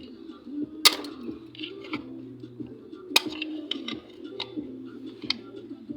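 Sharp metallic clicks and knocks of hand tools working on a car's distributor, the loudest about a second in and again about three seconds in, with lighter ticks between.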